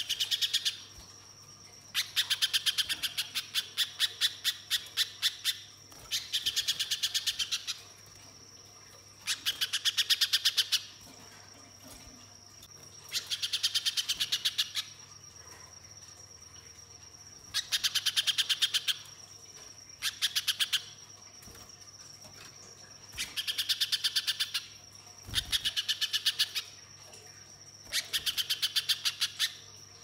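Little spiderhunter (pijantung pisang) singing in bursts of rapid, evenly spaced sharp chipping notes. Each burst lasts about one to two seconds, and about ten come in turn with short pauses between. A steady thin high tone runs underneath.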